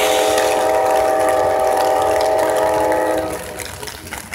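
Diesel freight locomotive's multi-chime air horn sounding one long steady blast that cuts off about three seconds in, with the next blast starting right at the end.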